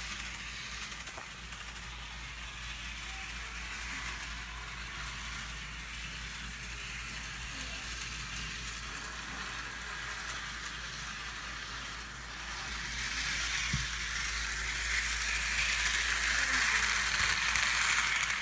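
HO scale model train running on its track, a steady whirring rattle of the small motor and wheels on the rails, getting louder about two-thirds of the way through.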